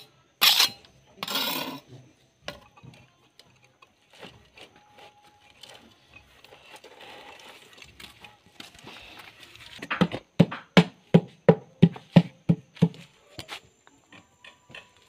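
Hand tools working fresh concrete bricks: a few sharp slaps of a trowel on wet concrete at the start, then quiet scraping, then about ten seconds in a quick run of about a dozen knocks on concrete, three or four a second.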